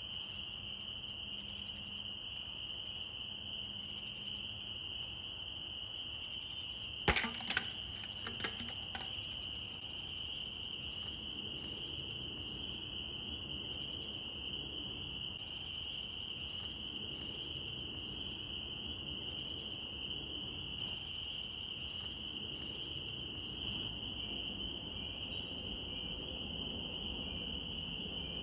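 Steady high-pitched insect trill, with a couple of sharp knocks about seven seconds in and a few fainter clicks a second later.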